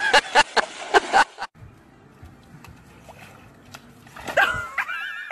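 Water splashing and sloshing as a large dog scrambles out of a lake into a canoe, then after a short quiet stretch a dog whining and yipping in short, high cries.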